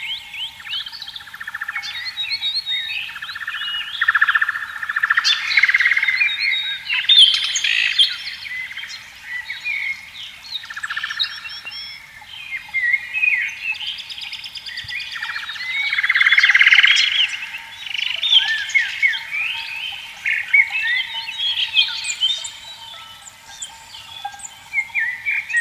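Many birds chirping and calling at once, with buzzy pulsed frog calls rising and falling several times among them. A faint steady tone runs underneath.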